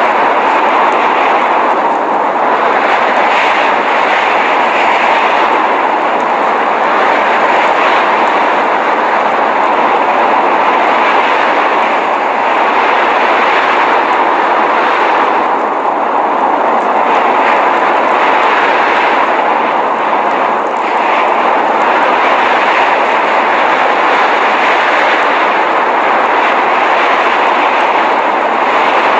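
Steady rushing blizzard wind noise, an even hiss with no tones that swells slightly now and then.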